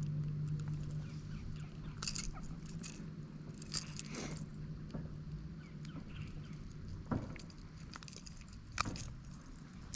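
Scattered light clicks and rattles as a freshly caught largemouth bass and its lure are handled, with a low steady hum that weakens near the start.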